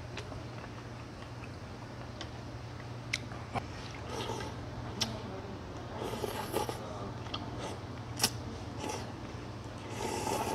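Noodles being slurped up from a big bowl of meat noodle soup with chopsticks: three noisy slurps, about four seconds in, around six seconds and near the end, with small sharp clicks and chewing sounds between them.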